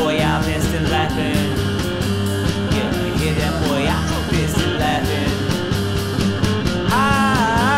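Garage-rock band playing an instrumental passage: drums keeping a steady beat under bass and electric guitar. Near the end a melodic line wavers up and down in pitch.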